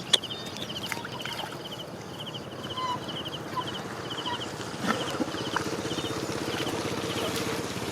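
Insects chirping in short, fast trills repeated about twice a second. About five seconds in, a small engine starts running steadily underneath.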